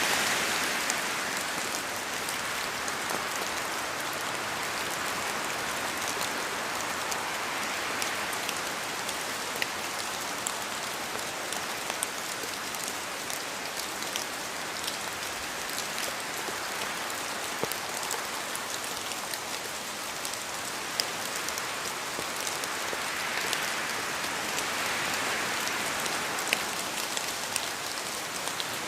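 Steady rain falling, with individual drops clicking sharply on a hard surface.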